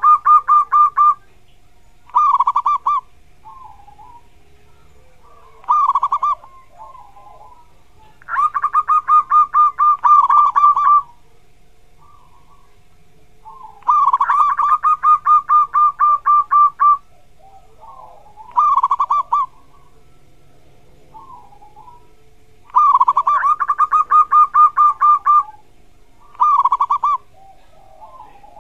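Zebra dove (perkutut) singing in rapid staccato coo phrases. Long runs of about ten notes at roughly four a second alternate with shorter bursts of a few notes, with pauses of a few seconds between phrases.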